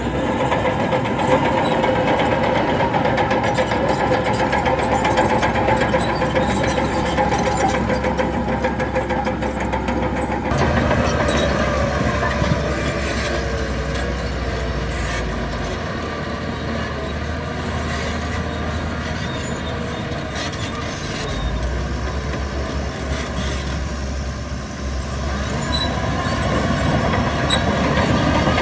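Heavy diesel engines of earthmoving machines running steadily, with the engine sound changing abruptly about ten seconds in.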